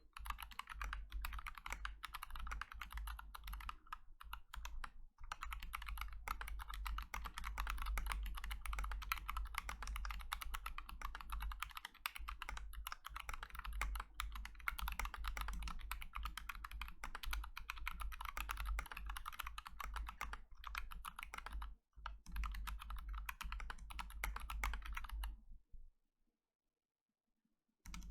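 Fast, continuous typing on a Glorious GMMK TKL mechanical keyboard with stock Kailh Box Royal tactile switches, a neoprene foam mod and PBT Cherry-profile keycaps: a dense, unbroken run of keystroke clacks. The typing breaks off into dead silence about three seconds before the end, then starts again right at the end.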